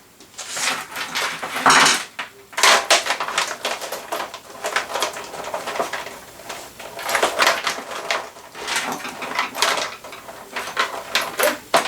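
Rapid light clicks, clatter and rustling of PC power cables and their plastic connectors being handled and threaded through a computer case.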